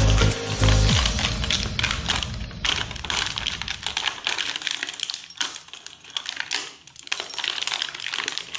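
Small metal shower-door fittings being handled in their plastic blister pack: rapid, irregular clicking and rattling with plastic crinkling.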